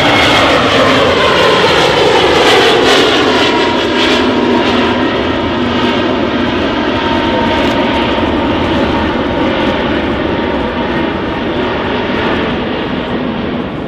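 Airbus A321neo XLR's twin turbofan engines at climb power as the airliner climbs away overhead. A loud roar with whining engine tones that fall in pitch over the first few seconds, then hold steady while the sound slowly fades.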